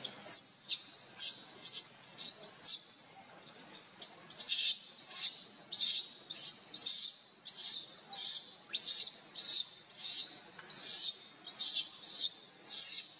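A steady series of short, high-pitched chirps, about two or three a second, repeating evenly.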